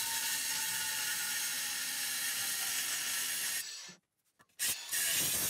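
Cordless angle grinder cutting through the steel shell of a hermetic refrigerator compressor: a steady, hissing grind. It stops for under a second about four seconds in, then starts again.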